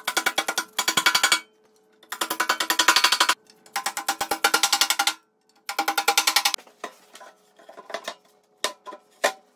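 Dead blow hammer tapping square steel tubing into place on a welding cart frame, in four bursts of rapid taps with a ringing metallic tone, followed by a few separate knocks and clanks near the end.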